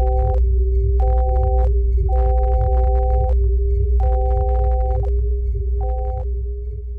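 Electronic soundtrack tones: a deep drone and a steady hum, with a two-note beep switching on and off five times in short and long stretches, each starting with a click. It fades near the end.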